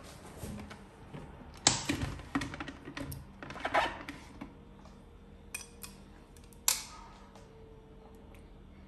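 Kenwood blender jug being handled and lifted off its motor base: a run of clunks and rattles, the loudest near the start. A drinking glass then knocks once, sharply, on the worktop a little past the middle.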